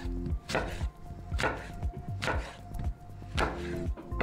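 Kitchen knife cutting through a raw apple and tapping the bamboo cutting board, four crisp strokes about a second apart.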